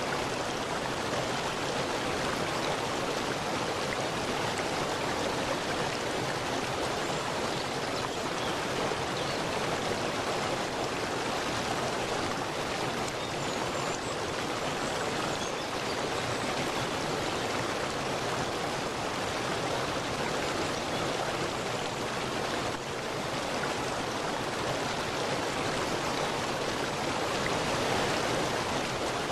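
Stream of running water rushing steadily, a constant even wash of sound.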